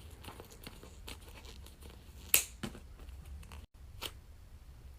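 Scissors cutting into a soft foam squishy toy: quiet snips and crinkles, with one louder snip a little over two seconds in.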